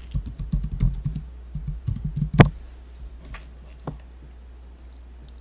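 A password typed on a computer keyboard: a quick run of key taps for about two seconds, ending in one harder keystroke, then two or three single clicks.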